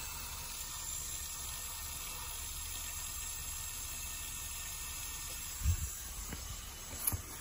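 Steady hiss of water running through the flow rig's clear tubing and rotameter flowmeter, with a low rumble underneath. Two soft handling bumps come near the end.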